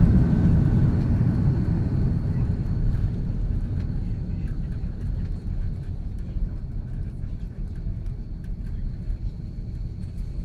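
Cabin noise of an Airbus A330-323 airliner on its landing rollout with the ground spoilers up: a loud low rumble of engines and wheels on the runway that steadily dies away as the plane slows.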